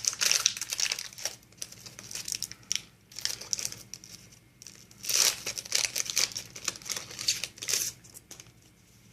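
Foil Yu-Gi-Oh booster pack wrapper crinkling and tearing as it is handled and opened, in several bursts of rustling, going quiet near the end.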